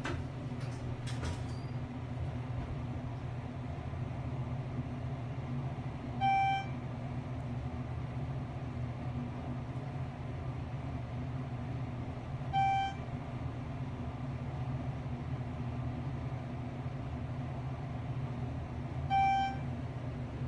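Schindler 6400NA traction elevator riding up, heard inside the cab: a steady low hum of the ride, with a short electronic chime sounding three times about six seconds apart as the car passes floors. A few light clicks near the start.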